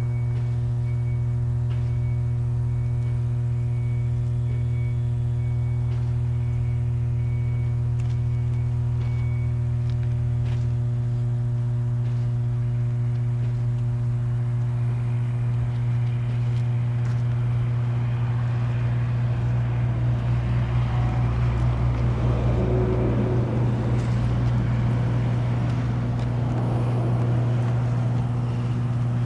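Steady electrical hum of substation equipment, a low buzz with a string of higher overtones, typical of energized power transformers. A faint repeating beep sounds over the first ten seconds or so, and a rushing, fluttering noise swells in the second half and eases off near the end.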